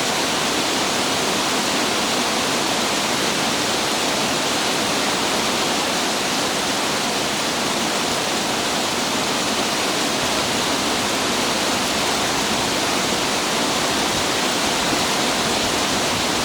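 Heavy rain pouring down steadily, a dense, unbroken hiss of falling water.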